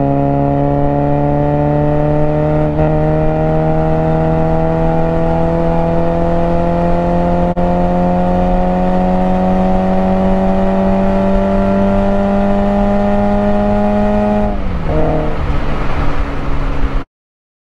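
Toyota GT86's 2.0-litre flat-four engine heard from inside the cabin, pulling under acceleration with the revs climbing steadily for about fourteen seconds. The revs then drop sharply and the engine runs lower until the sound cuts off suddenly near the end.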